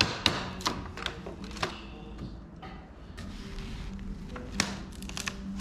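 Sharp metal clicks and knocks, with some scraping, as an old Singer treadle sewing machine is dismantled and its cast-iron head is worked loose from the wooden cabinet. The knocks come in a quick run at the start, with another about two-thirds of the way through and a few near the end.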